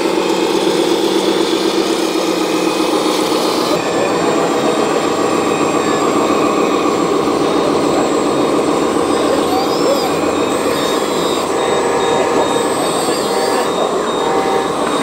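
Remote-controlled model trucks running, a steady engine-like drone that holds an even level throughout.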